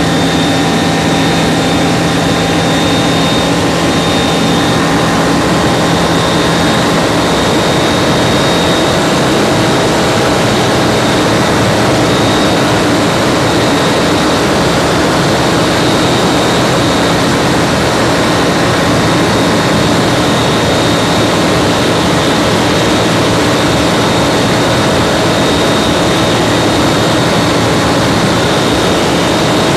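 Kitfox 4 light aircraft's Rotax 912 four-cylinder engine and propeller droning steadily in flight, heard from inside the cockpit.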